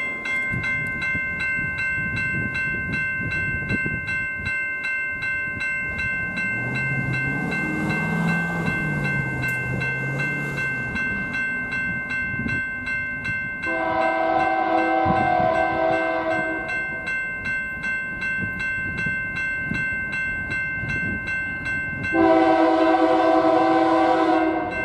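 Approaching BNSF diesel locomotive sounding its air horn in two long blasts, the first about 14 seconds in and the second near the end, the second the louder. Under the horn, a grade-crossing bell rings steadily throughout.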